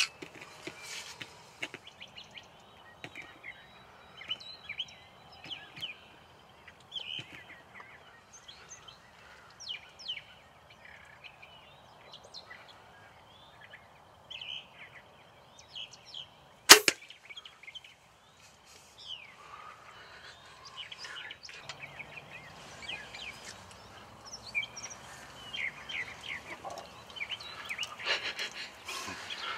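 Two shots from a Mathews Halon compound bow: a sharp snap right at the start and a second, louder snap about 17 seconds in, with songbirds chirping throughout. Both shots went low: the first missed the tom, the second brought it down. Rustling follows in the last several seconds.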